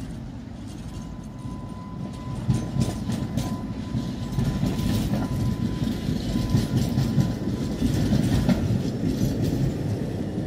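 A two-car Tatra tram set running past on the rails. Its low rumble grows louder from about two seconds in, with scattered clacks from the wheels on the track.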